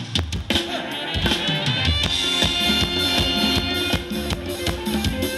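Live band playing Thai ramwong dance music. A burst of drum-kit hits opens it, then about a second in the bass and full band come in with a steady beat and long held melody notes.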